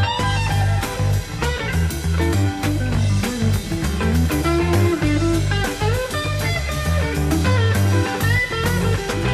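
Live rock band playing an instrumental stretch: electric lead guitar lines with sliding, bending notes over a pulsing bass guitar and a drum kit.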